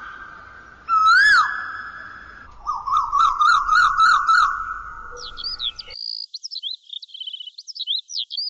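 Birdsong: a loud whistled call that rises and falls, then a quick run of repeated rising whistled notes. From about five seconds in, higher, faster chirps and trills take over.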